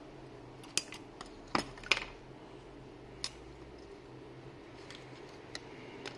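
Small sharp clicks and taps from handling a mobile phone's circuit board and LCD on a hard workbench. A cluster of clicks comes in the first two seconds, then a few single ticks, over a low steady hum.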